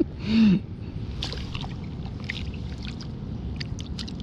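A short voiced shout just after the start, falling in pitch, then a steady rushing outdoor background, water-like, with scattered small ticks and taps.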